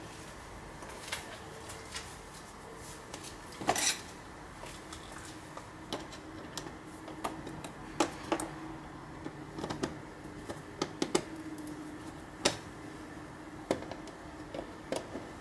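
Flathead screwdriver turning the screws of worm-drive hose clamps on a rubber intake air hose: irregular sharp metallic clicks and short scrapes, with a longer scrape about four seconds in and the loudest clicks around eight and twelve seconds in.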